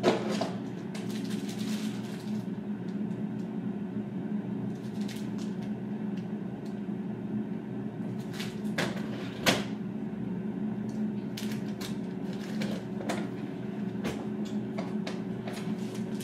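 Food and containers being moved around in an open refrigerator: scattered knocks and clinks, with one sharper knock about halfway through, over a steady low hum.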